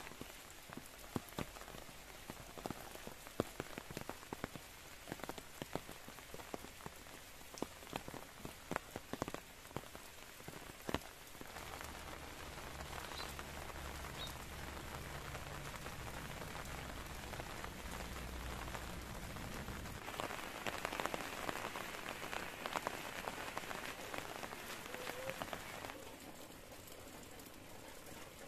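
Rain falling on trees and foliage. For about the first eleven seconds, close drops tick one by one; after that the rain settles into an even hiss that thickens a little past the middle.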